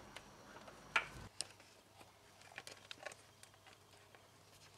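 Faint, scattered metallic clicks and light taps as the timing chain tensioner and chain are handled and worked back into place between the camshafts of a Porsche 944 S2 cylinder head, with a slightly louder click about a second in.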